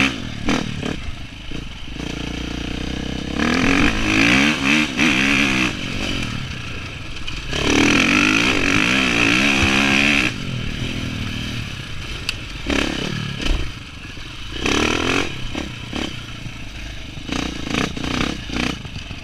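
Dirt bike engine being ridden over rough ground, its pitch rising and falling with the throttle. There are two longer, louder pulls about four seconds in and again from about eight to ten seconds, then shorter bursts later, with knocks and rattles of the bike over the bumps.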